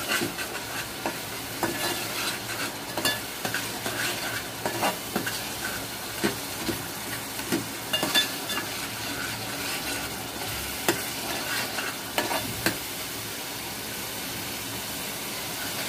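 A metal spoon stirring and scraping a thick spice and tamarind-kokum masala in an aluminium pot, over a steady sizzle of the masala frying in oil. This is the stage where the masala is fried until it is fragrant. The stirring stops near the end, leaving only the sizzle.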